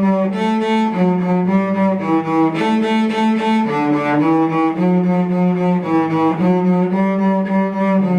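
Cello playing a slow bowed melody of held notes, changing pitch about every half second to a second.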